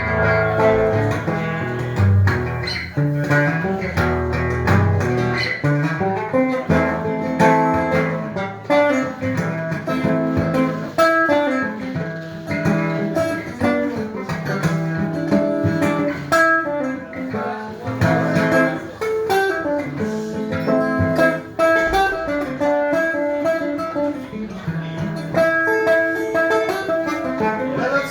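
Instrumental guitar break: guitar playing on without singing, dense plucked and strummed notes.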